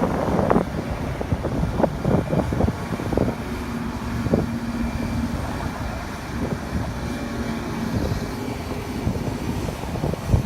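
Low rumble of heavy vehicle engines with wind buffeting the microphone, a few short knocks in the first seconds, and a steady hum from about three and a half to eight seconds in.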